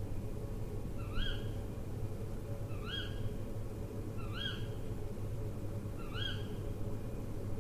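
An owl calling: four short notes that each rise in pitch, repeated about every one and a half to two seconds, over a steady low hum.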